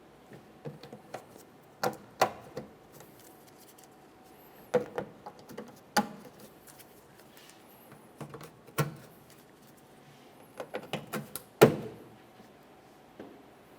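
Plastic push-pin clips being pressed into a plastic tailgate trim panel: scattered clicks and knocks in small clusters, the loudest near the end.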